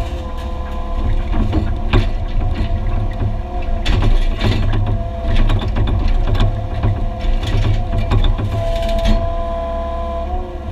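Excavator working on a concrete pad: its diesel engine runs steadily under a constant hydraulic whine, with irregular clanks and knocks as the concrete is broken up.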